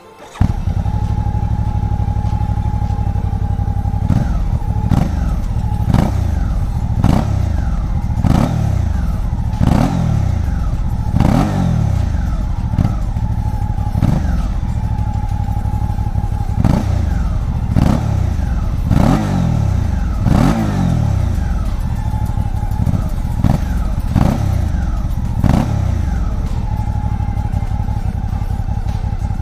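Suzuki V-Strom 650 XT's 645 cc V-twin engine idling, then blipped again and again: short throttle revs every second or two, each rising and dropping back to idle.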